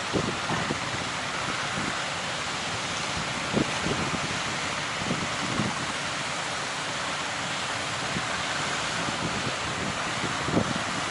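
Ocean waves and wind, a steady rushing noise, with gusts buffeting the microphone in short low thumps every second or so.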